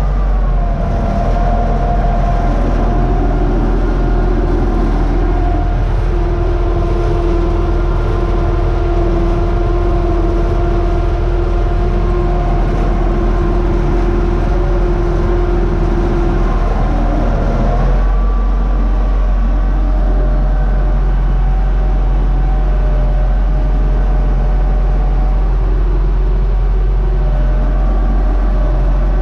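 UTB Universal 650 tractor's diesel engine running steadily under load while pulling a plough, heard from inside the cab. The engine note changes abruptly a little after halfway.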